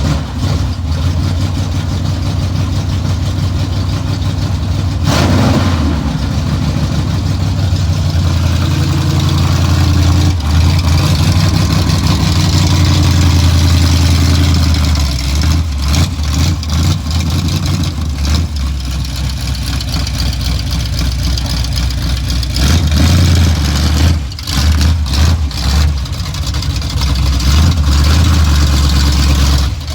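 Large engine running, its revs rising and falling at times.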